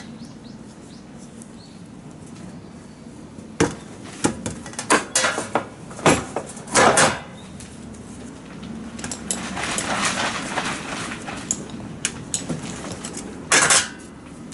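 Small metal carburetor parts and hand tools clinking and knocking during disassembly and reassembly: a run of sharp clinks in the middle, a stretch of scraping about ten seconds in, and a short clatter near the end, over a low steady hum.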